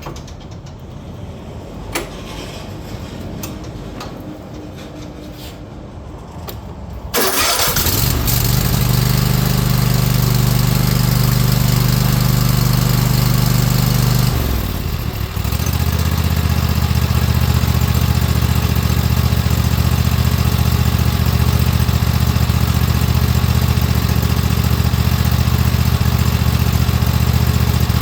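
2024 Cub Cadet lawn tractor engine starting after several seconds of light clicks and handling, catching suddenly about seven seconds in and running, with its choke and throttle cable freshly reset into the correct hole on the arm. About halfway its note dips briefly and settles at a different pitch, then runs steady.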